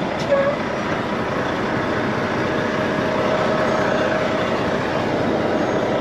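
Semi-truck idling in neutral, with its reefer trailer's refrigeration unit also running, heard as a steady drone through the open cab window.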